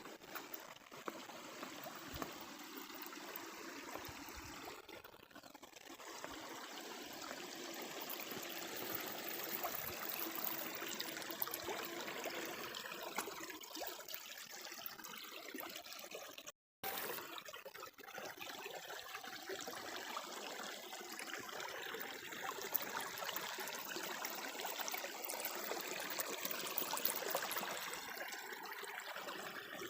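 Shallow brook trickling and babbling steadily, with a brief dropout of the sound just past halfway.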